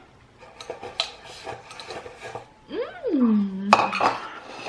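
Light clinks of utensils against a bowl for the first couple of seconds. About three seconds in, a short voice-like call rises and falls in pitch, followed by a louder, noisier sound.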